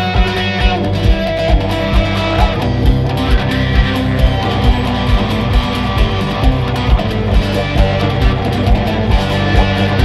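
Background music: a guitar-led track with a steady beat of about two beats a second.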